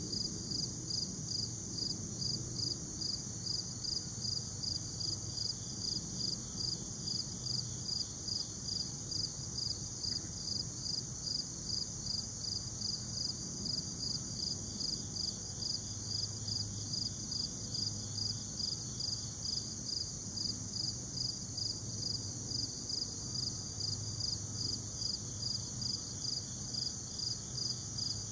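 A singing insect, cricket-like, calling in a steady high-pitched rhythm of about two to three pulses a second.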